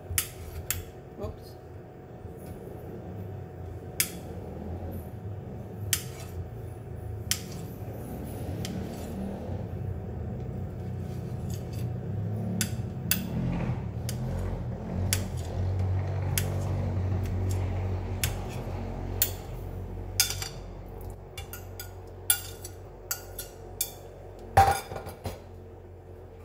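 Kitchen knife slicing sausages on a ceramic plate: sharp clinks of the blade striking the plate, coming irregularly every second or so, with one louder clink near the end. A low hum swells and fades in the middle.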